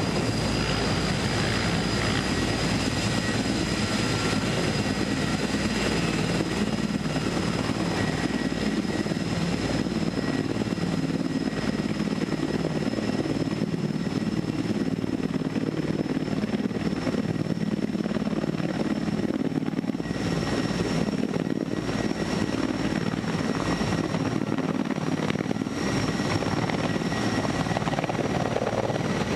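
Heavy-lift helicopter running as it approaches, its rotor and engines giving a steady sound with a high turbine whine that rises slowly in pitch.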